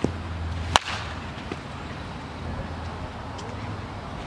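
Baseball bat striking a pitched ball once about a second in: a single sharp crack, with a fainter knock right at the start. A steady low hum runs underneath.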